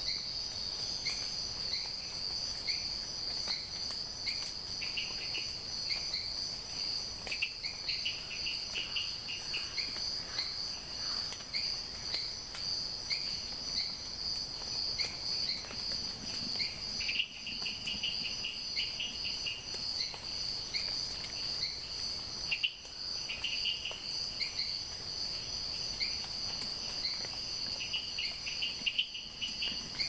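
Rainforest dawn chorus led by a steady high-pitched insect drone, with other creatures giving short repeated chirps and occasional bursts of rapid trilling over it.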